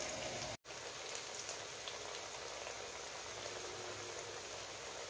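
Battered sweet potato strips deep-frying in a wok of hot oil: a steady sizzle with a few faint crackles, broken by a brief dropout about half a second in.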